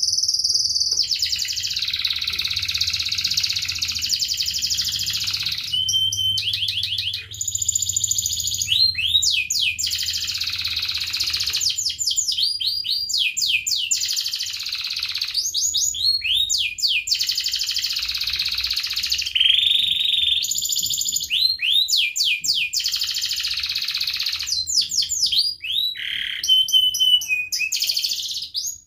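Domestic canary singing a long, almost unbroken high song. Dense rolling trills alternate with rapid runs of sweeping chirps.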